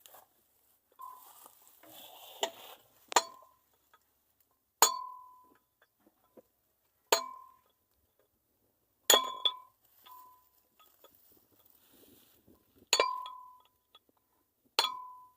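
Hammer striking steel, about six sharp blows spaced roughly two seconds apart, each ringing briefly, with a few lighter knocks between them.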